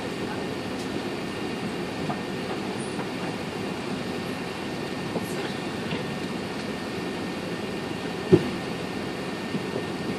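Steady low rumble inside the cabin of an Airbus A380 taxiing, with faint rattles and one sharp thump a little after eight seconds.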